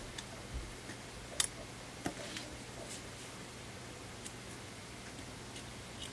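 A few light clicks and taps of small hand tools on a phone's internal parts, the sharpest about one and a half and two seconds in, then only faint occasional ticks.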